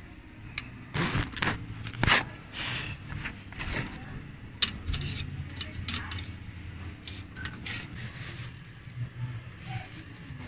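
Irregular metallic clicks, clinks and scrapes of a wrench working on bolts in an engine bay, loosening the compressor's mounting bolts.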